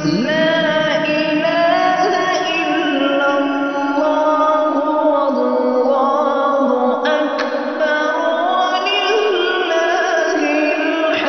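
A Quran reciter's voice in melodic recitation, holding long drawn-out notes that rise and fall slowly in pitch.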